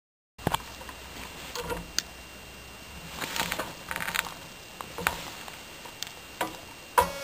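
Scattered clicks, taps and knocks of handling around a bicycle-mounted DC motor. Near the end a sharp click is followed by a steady whine as the PWM motor controller powers the motor.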